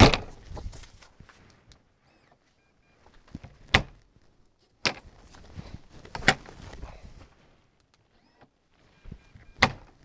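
Onnais electronic RV door lock's deadbolt being worked, locking and unlocking: a series of sharp clunks a few seconds apart, with faint short beeps in between.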